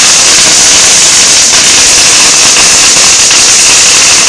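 Firecrackers and fireworks going off in a dense, unbroken crackle, very loud and without a pause.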